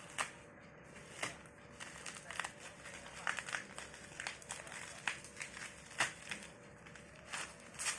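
Packaging being handled and opened: crinkling and rustling with irregular sharp clicks and crackles.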